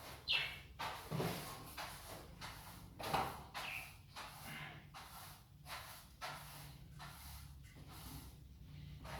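Irregular scraping and knocking as budgerigar cages are handled and cleaned, with budgies chirping now and then.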